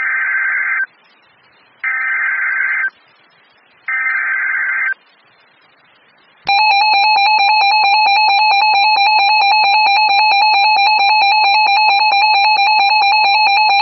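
Emergency Alert System SAME header: three one-second bursts of buzzing digital data tones about a second apart, then the steady EAS attention tone starts about six and a half seconds in and holds, louder than the bursts.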